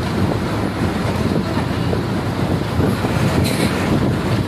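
Steady running noise of a city bus on the move, heard from its open doorway: engine drone mixed with road and traffic noise.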